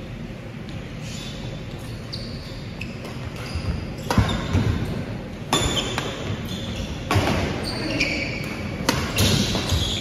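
Badminton rally: rackets striking the shuttlecock with sharp, irregular clicks a second or so apart, mostly from about four seconds in, among short squeaks of court shoes on the wooden floor.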